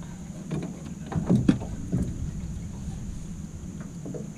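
Several knocks and clunks on the aluminium boat as the men move about and handle gear, the loudest few close together about a second and a half in, over a steady low hum.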